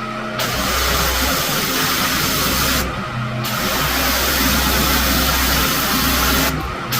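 Pressure washer spraying in a steady hiss over the hum of its running engine. The spray stops briefly about three seconds in and again near the end, as the trigger is let go, leaving the engine hum.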